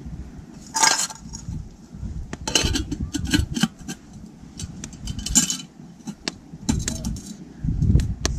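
Metal camping pots, mugs and lids clinking and clattering as they are handled and set over a small wood fire, in a string of sharp knocks, some with a short metallic ring.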